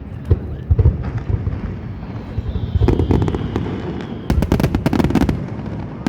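Fireworks show: deep booms of bursting shells, then denser popping with a faint thin whistle, and from about four seconds in a rapid barrage of sharp cracks, many a second.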